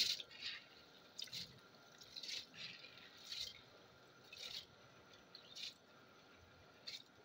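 Wet basmati rice being tipped and pushed by hand from a plastic bowl into a pot of peas in water, landing with short soft splashes about once a second.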